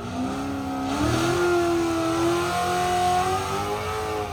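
V8 performance car engine accelerating hard. The revs climb about a second in, hold high with a slowly rising pitch, then fall away near the end as the throttle comes off.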